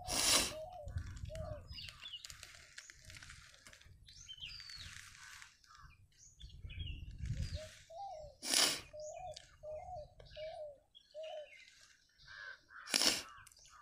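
Birds calling: a run of short, repeated, arched calls and scattered higher chirps. Three loud sharp knocks, one near the start, one about halfway, one near the end.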